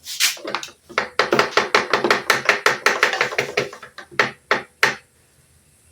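A quick run of about twenty sharp mechanical clicks and knocks, about five a second, thinning out and stopping about five seconds in.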